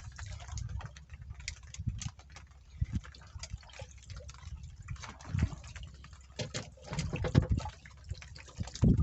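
Water splashing and sloshing, with irregular knocks and clicks over a steady low rumble; busier from about halfway in.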